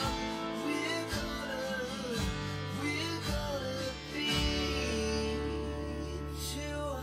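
Background music: a song with guitar and a sung melody.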